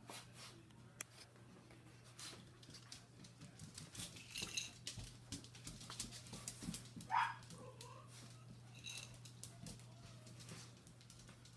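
Puppies' claws clicking and pattering on a tile floor as they scamper and play, with a few brief high squeaks and one short yelp about seven seconds in.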